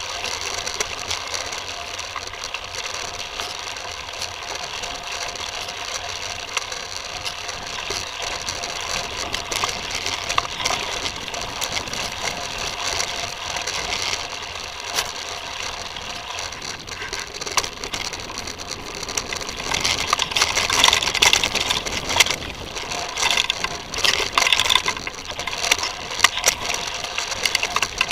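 Titus FTM mountain bike rolling over a dirt trail, the rear hub's freewheel ticking rapidly as it coasts, with constant rattle of the bike and its mounted camera over the rough ground. The rattling grows louder and rougher from about twenty seconds in.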